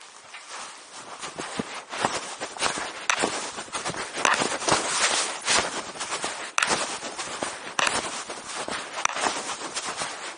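Continuous rustling and scuffing with irregular knocks and clicks scattered throughout: handling noise from a covered phone or camera while the person carrying it moves about.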